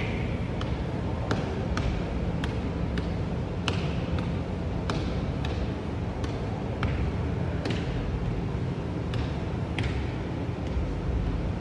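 Footsteps in sneakers going down a spiral staircase with metal treads, a sharp step sound about twice a second, some with a short ring, over a steady low background hum.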